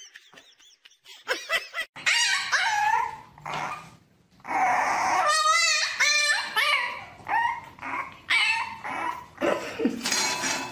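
A puppy yapping and howling: a string of high, short yips and whines around one long wavering cry in the middle.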